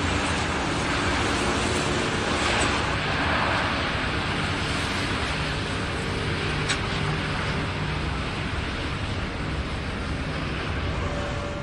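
Storm wind and heavy surf breaking against a rock breakwater, a loud, steady rush of noise with no clear breaks.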